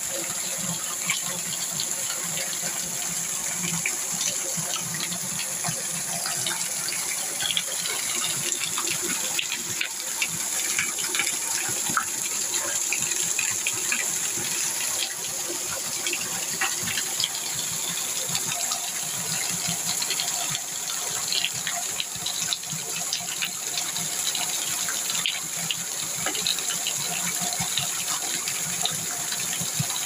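Water rushing and splashing steadily, with many small crackling splashes. A steady high-pitched hiss runs over it.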